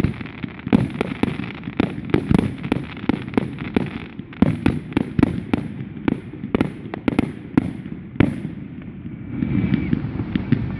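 Fireworks firing a rapid volley of sharp bangs, several a second. The bangs stop about eight seconds in, leaving a softer steady noise.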